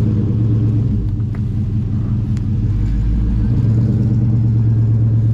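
Tow vehicle's engine running steadily at low speed while maneuvering a dump trailer, a low, even rumble.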